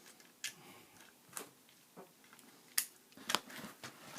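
Lego bricks and small plastic pieces being handled: several scattered sharp plastic clicks and taps, the loudest a little under three seconds in.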